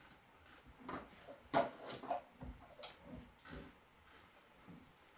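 Irregular light knocks and clicks, about half a dozen spread over a few seconds, like objects being handled and set down.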